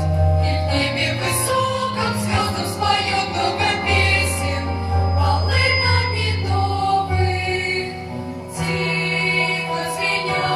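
Choral music: a choir singing held notes over a sustained low bass line.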